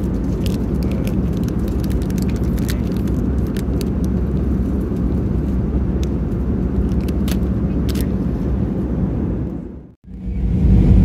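Steady in-flight cabin rumble of an Airbus A320 with a faint hum, and light crackles of a plastic snack wrapper being handled. The sound drops out briefly about ten seconds in and comes back louder.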